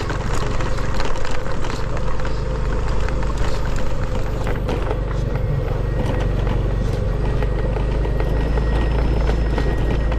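Small motorbike engine running steadily while riding a bumpy dirt trail, with frequent knocks and rattles as the bike bounces over the rough ground.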